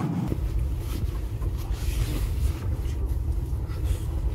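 Low, steady rumble of a train carriage running on the rails, picked up through the carriage, starting abruptly about a third of a second in, with faint rustling of bed linen being handled.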